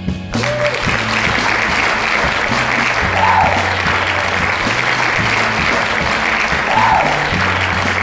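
Dubbed-in crowd applause sound effect that starts just after the beginning and carries on steadily, laid over background music with a steady bass line.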